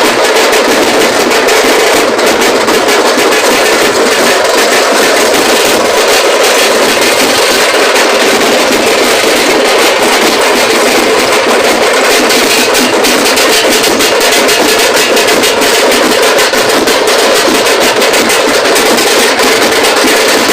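Loud, continuous festival music dominated by drums and percussion, with a dense stream of hits and no breaks.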